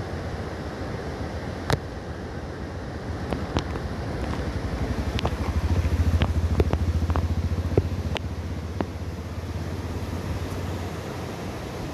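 Steady rush of a fast, swollen river, with a motor vehicle's low rumble building and fading away again in the middle. Several sharp clicks are scattered through it.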